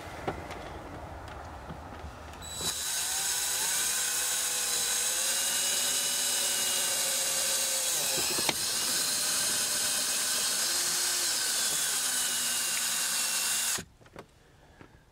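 Cordless drill boring a hole through a UHMW plastic mounting plate and the dashboard for an antenna cable. The motor starts about two and a half seconds in and runs for about eleven seconds, its pitch sagging and recovering as the bit loads up. It dips once around the middle and cuts off sharply near the end.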